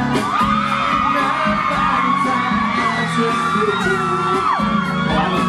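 Backing music of a pop ballad playing while many high voices in the audience scream and whoop at once, their pitches sliding up and down.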